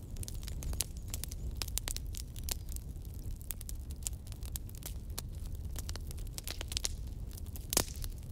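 Wood campfire burning, crackling with frequent sharp snaps and pops over a steady low rumble, with one louder pop near the end.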